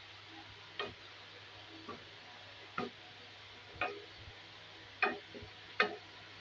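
Wooden spatula knocking and scraping against a stone-coated wok while stirring spinach and potato curry: six short knocks about a second apart, the last ones loudest, over a faint steady sizzle.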